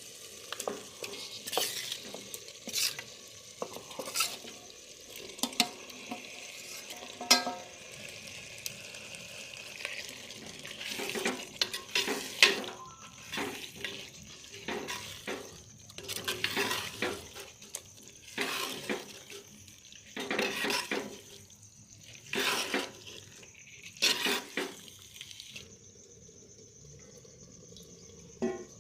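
A spatula stirring and scraping chicken frying in a clay cooking pot, with sizzling under it. There are repeated short scraping strokes with a few sharp knocks, and the strokes stop a few seconds before the end.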